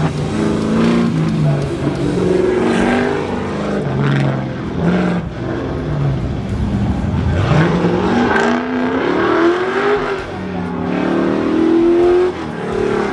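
A lowered OBS Chevrolet pickup's engine revving hard and easing off again and again as the truck is driven around an autocross cone course; the pitch climbs steeply twice, about halfway through and again near the end.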